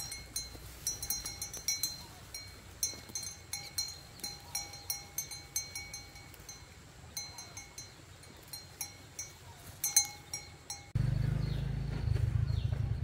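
A small metal bell clinking over and over in an uneven rhythm, about two or three strikes a second, each strike leaving a short ring. About eleven seconds in it cuts off suddenly and a steady low rumble takes over.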